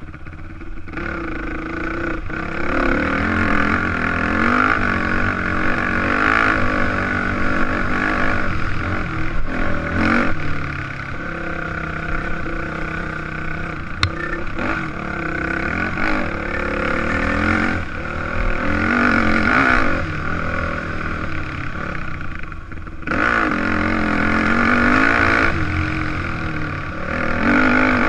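Yamaha dirt bike engine being ridden along a trail, its pitch rising and falling over and over as the throttle opens and closes and the gears change. One sharp knock comes about halfway through.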